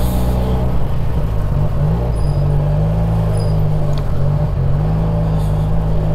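Benelli 302S motorcycle's parallel-twin engine running steadily under way. Its pitch dips and recovers twice, about a second and a half in and again past the four-second mark.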